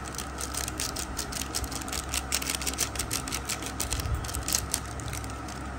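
Hands squishing and rubbing a wet spice marinade into raw chicken drumsticks in a steel bowl: a rapid, irregular run of small sticky clicks that thins out near the end, over a steady low hum.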